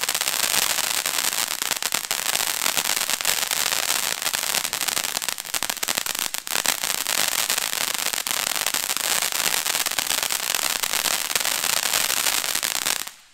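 Ground fountain firework spraying sparks: a steady, dense hiss full of fine crackles, which cuts off suddenly near the end as the fountain burns out.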